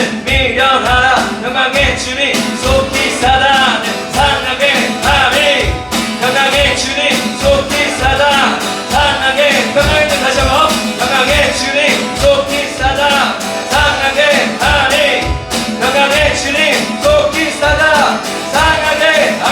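Live worship band music with singing: acoustic guitar, keyboard, bass guitar and electronic drums playing under a steady drum beat.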